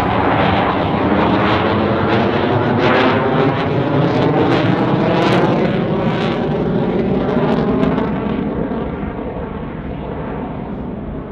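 A CF-18 Hornet fighter's twin General Electric F404 turbofans give a loud jet roar as it manoeuvres, with sharp crackling cracks through the middle. The roar fades away over the last few seconds.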